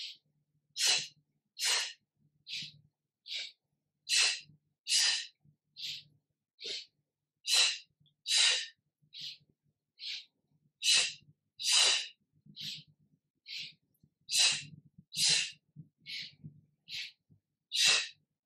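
Forceful, audible yoga breathing: short, sharp breaths in and out, about one every second, alternating louder and softer, paced to a seated side-to-side bend, in to one side and out to the other.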